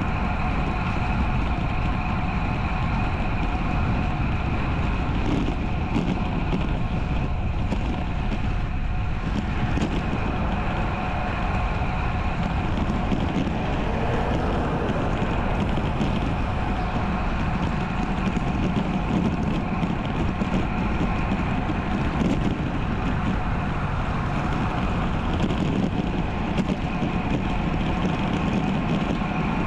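Steady rush of wind and road noise from a road bike ridden at speed, picked up by its action camera, with a few faint steady tones running through it.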